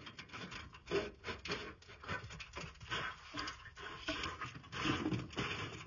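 Irregular rubbing and scraping on the thin aluminium skin of a kitplane aileron as it is handled and pressed against its ribs during Cleco fit-up.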